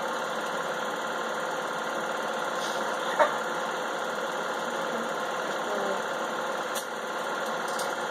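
Home-movie film projector running with a steady mechanical whir, with a sharp click about three seconds in.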